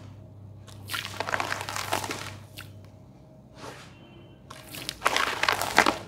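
Hand scraping and squishing gritty wet sand-cement paste in a basin: crunchy scraping about a second in, a short softer one past the middle, and a louder bout near the end.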